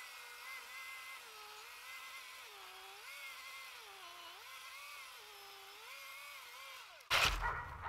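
Milwaukee M18 Fuel 16-inch brushless cordless chainsaw cutting through a tree stump: a steady electric motor whine whose pitch sags and recovers several times as the chain bites into the wood. It cuts "just like butter", the sign that the chain is on in the right direction.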